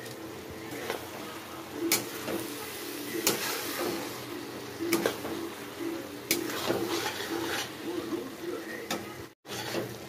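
A spatula stirs and scrapes cabbage and potato curry in a kadai, with a scrape or click against the pan every second or so.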